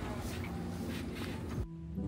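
Street ambience as a city bus passes. About one and a half seconds in, it cuts suddenly to the steady low hum of a bus's interior while it drives.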